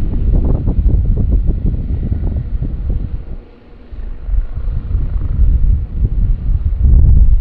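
Wind buffeting the microphone in a heavy, gusting low rumble that dips briefly about three and a half seconds in. The three AW159 Wildcat helicopters approaching in the distance are faint beneath it.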